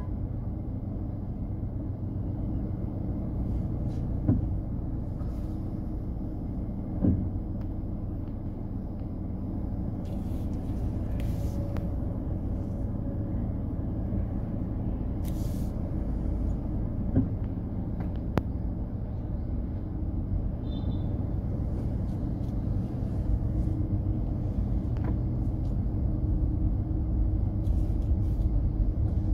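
Steady low rumble of street traffic, with a few short knocks.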